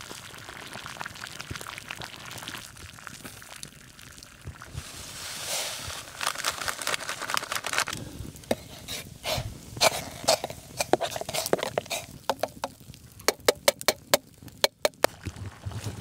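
Water at a rolling boil in a steel pot on a campfire, with the fire crackling. From about halfway a metal spoon works in the pot, giving a run of sharp metallic clinks that come thick and fast near the end.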